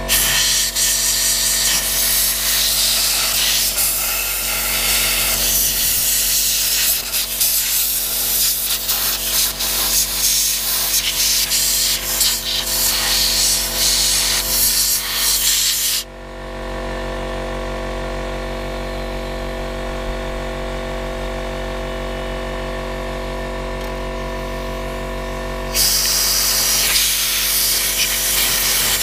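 Compressed-air blow gun hissing in long blasts against a mower engine, over the steady hum of a running air compressor. The air stops a little past halfway, leaving only the compressor for about ten seconds, then starts again near the end.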